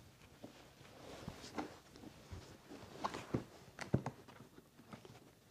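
Hard plastic equipment case being handled and laid flat on a carpet, with a few scattered knocks and clicks, the sharpest about four seconds in, as its latches are worked open.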